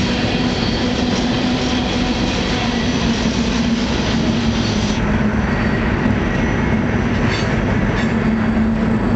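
Freight train running, heard from aboard a moving freight car: a loud, steady rumble of wheels on rail with a steady low hum. The hiss above it thins out about five seconds in.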